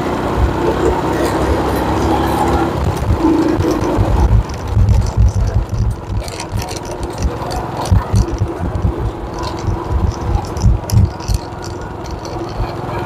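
Motorcycle running at riding speed along a rough, patched lane. From about four seconds in, irregular low thumps, from wind or jolts on the microphone, sit over the engine.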